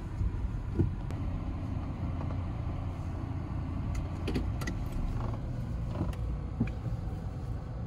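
Steady low rumble of a car in motion, heard from inside the cabin, with a few light clicks partway through.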